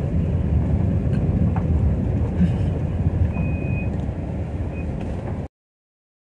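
Moving car's steady low rumble of road and wind noise. The sound cuts off abruptly to silence about five and a half seconds in.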